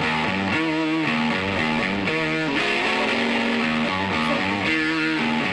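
Background music: a guitar-led instrumental track with a moving melody over sustained notes, playing at a steady level.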